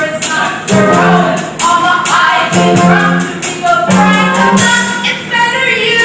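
Show-tune music: voices singing a stage-musical number over band accompaniment, with a crisp, regular percussion beat.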